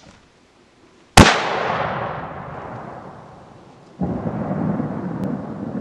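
A single rifle shot about a second in, fired at close range at a downed bull moose as a finishing shot, ringing out and dying away over about two seconds. About four seconds in, a duller, lower sound sets in suddenly and carries on.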